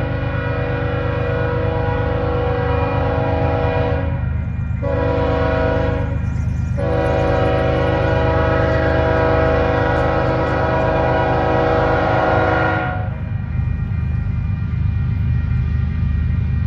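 Air horn of an approaching Union Pacific GE AC45CCTE locomotive sounding a steady chord of several tones: a long blast, a short one, then a long blast held about six seconds before it cuts off, the closing long-short-long of a grade-crossing signal. A steady low rumble runs underneath.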